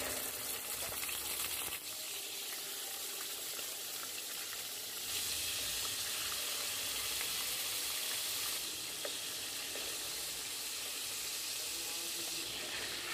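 Marinated chicken pieces sizzling as they fry in shallow hot oil in a nonstick pan: a steady hiss that starts as the first piece goes in, steps up about five seconds in as more pieces are added, and eases slightly near the end.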